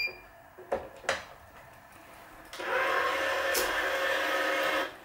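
A couple of light clicks, then, about two and a half seconds in, the motor of a Wise 2086 electronic tension head runs with a steady whir for a little over two seconds.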